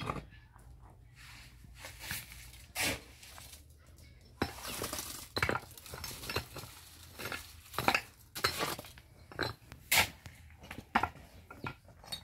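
Stones knocking and clinking against hollow concrete blocks as they are packed into the blocks' cores, with a shovel scraping through concrete mix. The knocks come irregularly, several of them sharp and loud.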